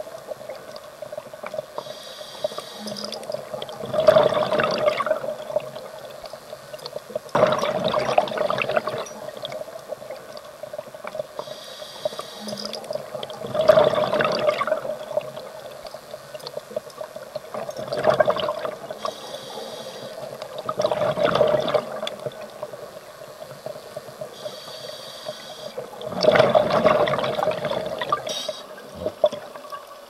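Scuba regulator breathing underwater: about six rushes of exhaled bubbles, each lasting a second or so and coming every three to six seconds, with fainter high hissing inhalations between them and a faint steady hum underneath.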